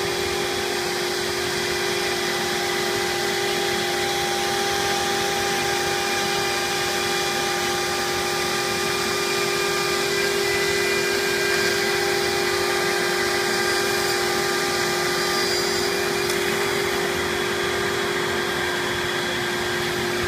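CNC router spindle running steadily as it machines thin aluminum sheet with a vinyl overlay, with dust extraction drawing air through the hose. The result is a constant whine over an even rushing noise.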